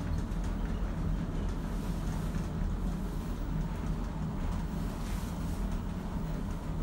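Inclined station lift running, a steady low hum and rumble heard inside its glass cabin.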